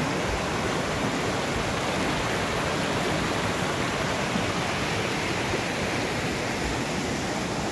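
Water running steadily, an even rushing with no breaks.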